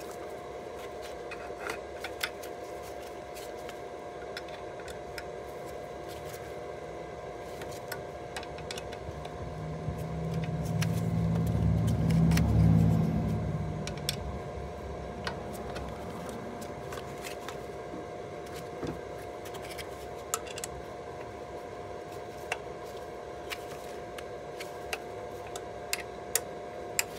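Scattered small metallic clicks of an Allen key tightening a scooter's brake caliper mount bolts, over a faint steady whine. About ten seconds in, a passing vehicle's engine rises, peaks and fades away over several seconds, the loudest sound in the stretch.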